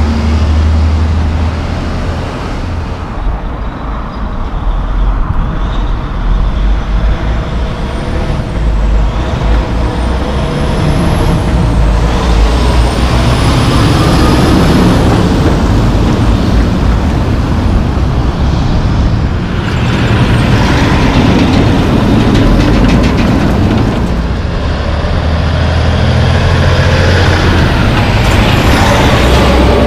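Diesel engines of loaded logging trucks running as the trucks pass close by in turn, the rumble swelling and easing with each pass. Brief high squeals, typical of truck brakes, sound about a third of the way in.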